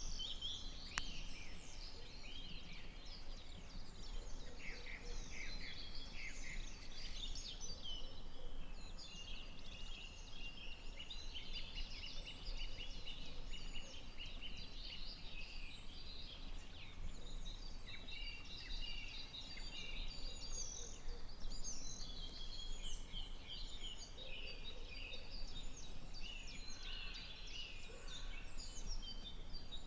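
Many songbirds singing at once in a spring chorus, quick chirps and short held whistles overlapping without pause, over a low steady rumble.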